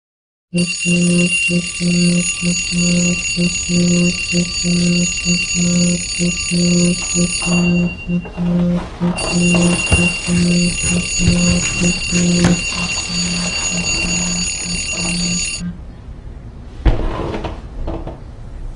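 An alarm ringing: a low buzz pulsing about twice a second under a steady high ringing tone. It stops abruptly about fifteen seconds in, and a single thump follows shortly after.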